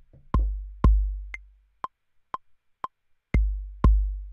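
Maschine MK3 playing back a looped bass drum pattern against its metronome. The metronome clicks twice a second, with a higher click every fourth beat. A deep kick drum with a long, low booming tail hits twice, half a second apart, near the start, and twice again about three seconds in.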